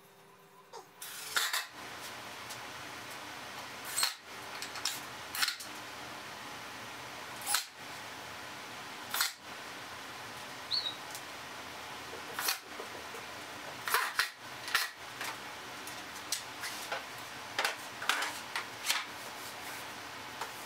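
Scattered sharp knocks and clicks as plywood boards are handled and set in place on a crosscut sled, about a dozen over the stretch, several close together near the middle and toward the end. They sit over a steady even hiss.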